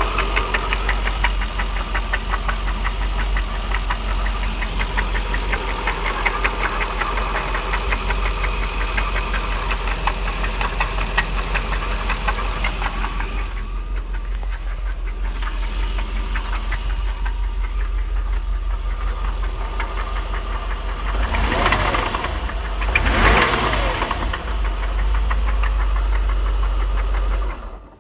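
1999 Jaguar XJR's supercharged 4.0-litre V8 idling with a steady, rapid knocking, revved briefly twice near the end. The knock appeared after the engine overheated, and the owner fears it is rod knock.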